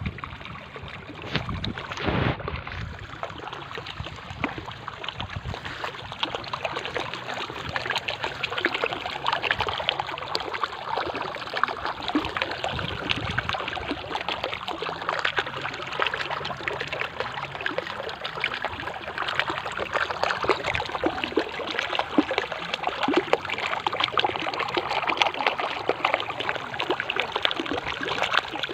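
Mountain stream flowing: continuous babbling and splashing of running water. There is a brief low rumble about two seconds in.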